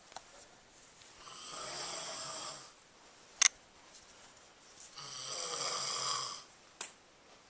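A sleeping person snoring: two long snores about three and a half seconds apart. A sharp click falls between them, and a smaller click comes near the end.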